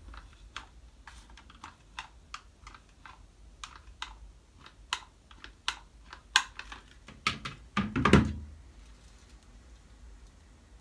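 Irregular light clicks and taps from hair-styling things being handled, a few a second, with a louder knock about eight seconds in.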